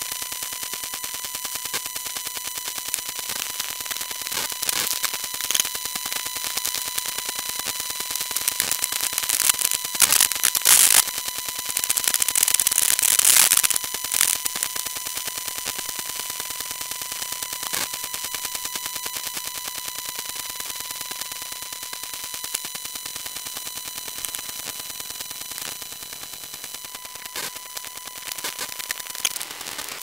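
Electromagnetic interference from a wifi router picked up by a telephone pickup coil: a steady high buzz under dense, rapid crackling static. The crackle swells louder and harsher twice, around ten and thirteen seconds in.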